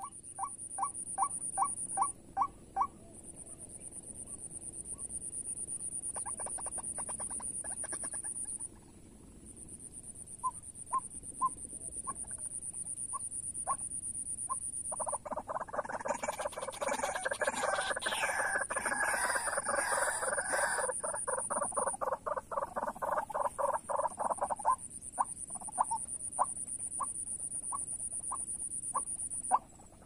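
White-breasted waterhen (ruak-ruak) calls: runs of short repeated notes about three a second. About halfway through they swell into a dense, loud chorus for roughly ten seconds, then thin back to single notes. A steady high whine runs behind them.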